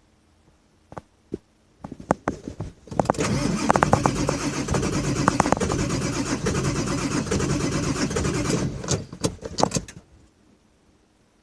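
Ford 7.3 Power Stroke V8 turbo-diesel cranking on the starter for about six seconds without catching, then stopping suddenly: a hard start, which the owner puts down to injectors that need replacing. A few sharp clicks come before the cranking.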